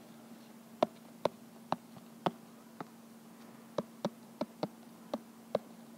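Stylus tapping and clicking on an iPad's glass screen during handwriting: about a dozen sharp, irregularly spaced taps, over a steady low hum.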